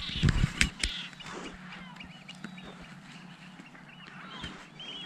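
A flock of birds calling, many short overlapping calls. A few sharp knocks in the first second.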